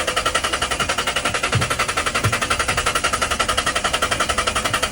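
Car engine cranking on its starter motor without firing, a fast, even, chugging rhythm. It is a no-start: the engine turns over but does not catch.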